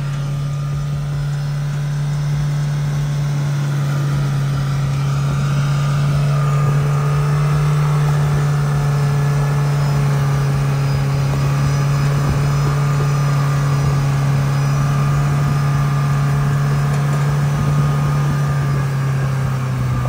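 Off-road vehicle's engine running steadily at raised revs, holding one even pitch with no changes, while the stuck Thar is driven out of a deep pit.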